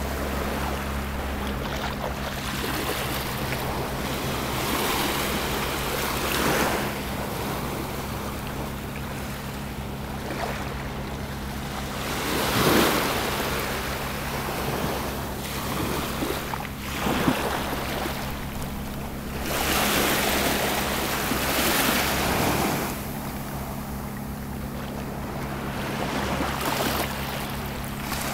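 Gentle Mediterranean surf breaking and washing up the shore, with a swell of hiss from each wave every few seconds.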